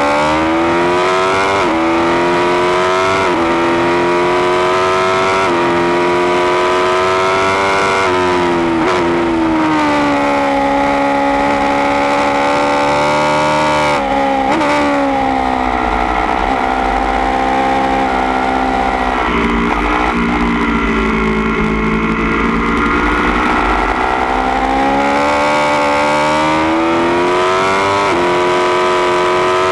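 Onboard sound of a 2016 Aprilia Tuono V4 1100 Factory's V4 engine through a baffled Austin Racing GP1R exhaust can, revving hard and climbing through the gears with quick upshifts in the first half. About two-thirds through it backs off and the revs fall, then it pulls hard again near the end, with wind rush throughout.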